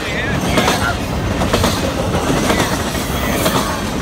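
Triple Crown RoadRailer freight train, highway trailers riding on rail bogies, rolling steadily past: a continuous rumble with irregular wheel clicks at the rail joints and a few brief wheel squeals.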